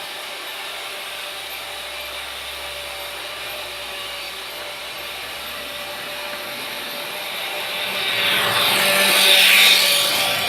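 Freight train wagons rolling on the rails: a steady running noise that grows louder over the last three seconds, peaking near the end with a harsh high-pitched rush.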